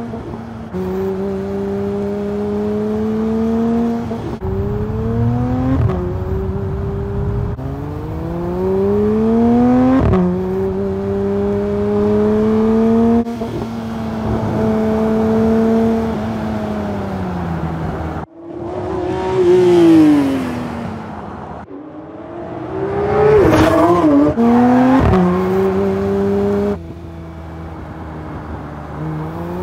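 Porsche 911 GT3 (992) naturally aspirated 4.0-litre six-cylinder boxer engine being driven hard. The revs climb and drop again and again through gear changes. Twice in the second half the car sweeps past, its pitch falling as it goes by.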